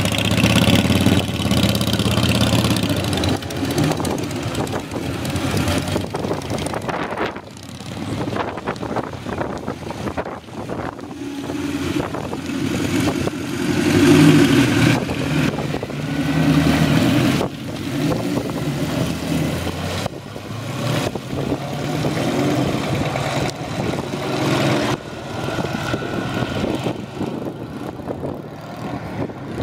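Several motorcycles pulling away one after another, each engine accelerating as it passes and then fading, with swells in loudness as each bike goes by.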